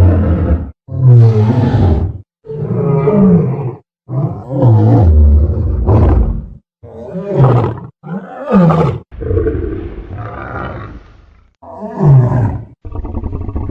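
Sound-effect ankylosaurus calls: a series of about eight deep roars and growls, each a second or two long, several falling in pitch, separated by short silences. Near the end a rapid pulsing rumble begins.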